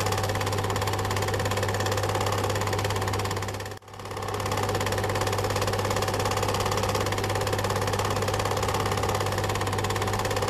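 Cine film projector running: a steady hum with a fast, even mechanical clatter of the film mechanism. It cuts out sharply just under four seconds in and swells back up over about a second.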